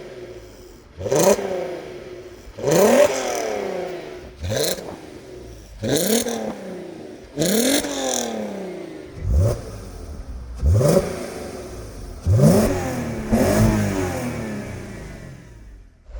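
Volkswagen Golf R32 Mk5's 3.2-litre VR6 engine heard through its exhaust, blipped about nine times in a row, each rev climbing sharply and falling back toward idle.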